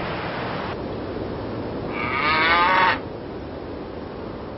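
A cow mooing once, a single call about a second long that rises and falls, a couple of seconds in. Before it there is a short steady rush of sea water that cuts off.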